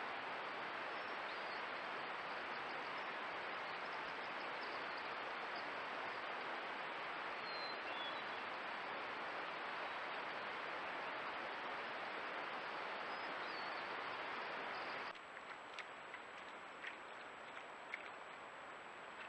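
Steady outdoor hiss with a few faint, short, high bird chirps. About 15 seconds in it drops suddenly to a quieter hiss carrying a thin high whine, with a few soft clicks near the end.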